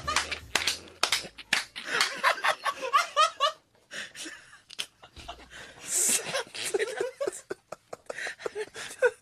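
Men laughing in fits after a punchline, with sharp slaps in among the laughter, and a few brief lulls.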